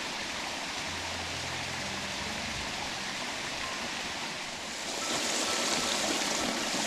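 Flowing stream water rushing steadily, growing louder about five seconds in.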